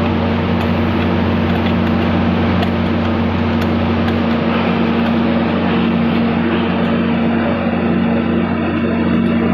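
A steady, loud mechanical hum with a constant low drone and no breaks, typical of machinery running in a workshop.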